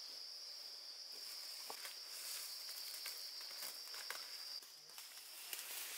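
An insect trilling in one steady, high-pitched note that stops about three-quarters of the way through, with scattered light clicks and rustles.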